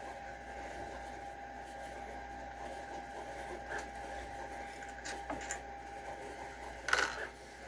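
Bolts and hand tools being handled during disassembly: a few faint clicks, then a sharper metallic clink about seven seconds in, over a steady faint hum.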